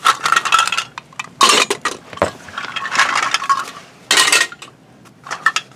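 Toy food pieces clattering and knocking as they are tossed into a toy kitchen's refrigerator shelf, in about five separate bursts of rattling.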